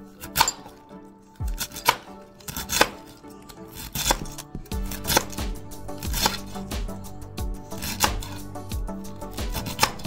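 Kitchen knife chopping vegetables on a cutting board, in slow, uneven strokes about once a second, over background music.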